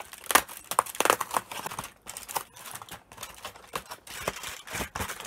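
Crinkling and rustling of a chocolate advent calendar's packaging close to the microphone, with irregular crackles and clicks as a chocolate is taken out.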